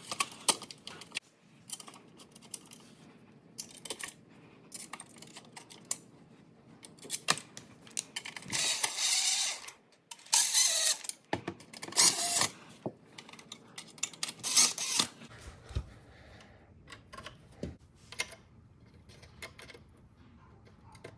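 Hands working on a range's power supply board and its mounting hardware: irregular clicks, taps and light rattles, with several louder scraping bursts in the middle.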